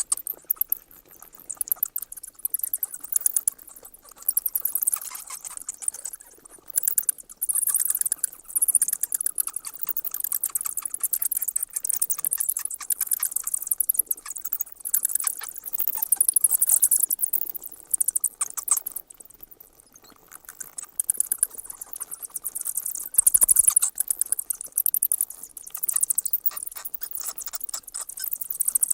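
Many bats squeaking: a dense, irregular stream of rapid, very high-pitched chirps and clicks that swells and fades, with a couple of brief lulls.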